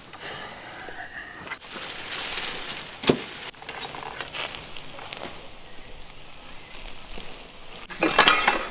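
Charcoal grill crackling and sizzling under skewers of raw camel meat, with a sharp click about three seconds in and a louder burst of handling noise near the end.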